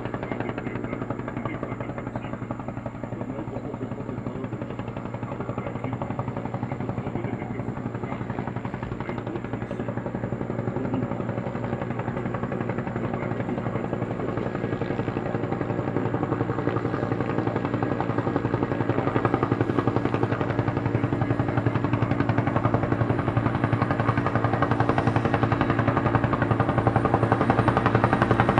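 Bell 212 helicopter's two-bladed rotor beating fast and evenly over its twin turbines, the sound growing steadily louder as it approaches to land.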